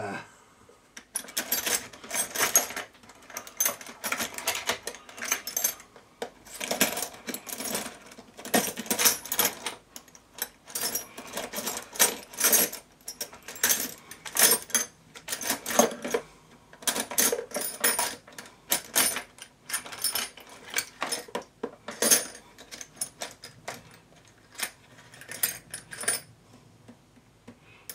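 Small metal drill bits clinking and rattling as they are sorted by hand and tried in a Dremel rotary tool's collet: many irregular light metallic clicks.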